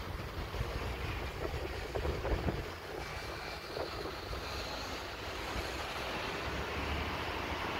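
Distant low rumble of a steam locomotive pulling out of the station, mixed with road traffic, under gusts of wind on the microphone.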